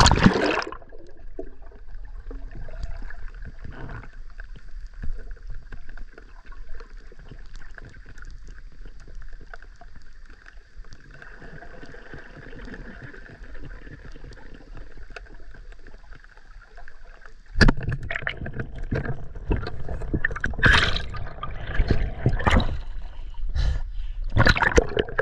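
River water heard through a head-mounted camera: a splash as the swimmer ducks under, then muffled, quiet underwater sound. About two-thirds of the way in, the camera breaks the surface and loud splashing and sloshing of water around the swimming spearfisher takes over.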